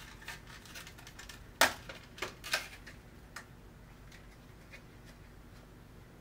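Clicks and taps of a clear plastic CPU case being handled: one sharp click about one and a half seconds in, then a few lighter ones over the next two seconds.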